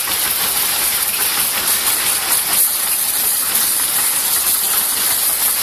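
A steady, loud hiss with no distinct events.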